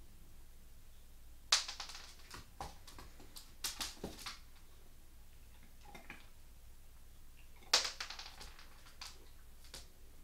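A young American Staffordshire Terrier crunching on something hard. There are sharp cracks about a second and a half in, around four seconds and near eight seconds, with quieter clicks between them.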